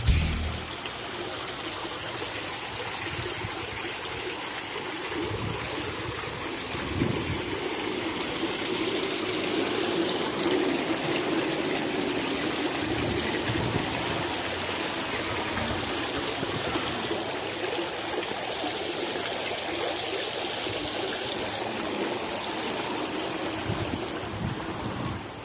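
Water splashing steadily in a fountain, an even rushing noise with no bangs or breaks.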